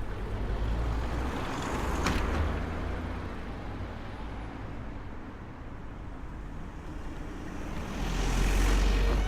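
Road traffic noise with a steady low rumble, as vehicles pass by twice, swelling and fading, the second pass the loudest near the end. A sharp click sounds about two seconds in.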